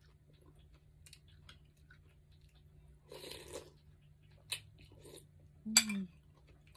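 A person eating noodle soup with chicken meatballs: quiet chewing, a slurp of noodles and broth from a spoon about three seconds in, light clicks of the spoon and chopsticks, and a short hum near the end.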